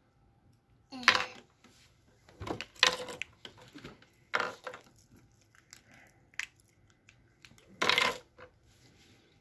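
Small hard-plastic lip gloss containers and their packaging being handled and opened: four short clattering, crackling bursts with faint clicks between.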